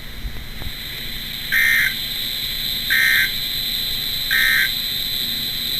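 EAS/SAME end-of-message tones: three short bursts of warbling digital data, about a second and a half apart, marking the end of a NOAA Weather Radio flood warning broadcast. A steady high whine and a low hum run underneath.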